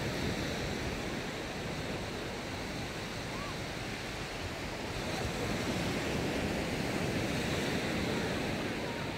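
Steady surf washing onto a sandy beach, mixed with wind.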